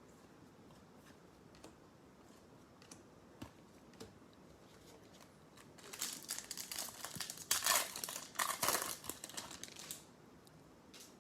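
Crinkling and tearing of a foil trading-card pack wrapper being ripped open, loudest from about six to ten seconds in, after a few faint ticks of handling.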